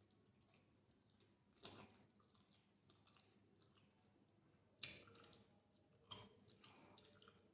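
Faint close-up chewing with small wet mouth clicks, and three louder smacks about a second and a half, five and six seconds in.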